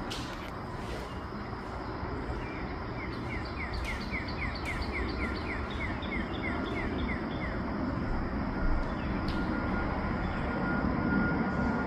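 Northern cardinal singing a fast run of clear, down-slurred whistled notes, about three a second, starting a couple of seconds in and stopping around the middle. A steady low rumble of distant traffic or machinery runs underneath and grows louder near the end.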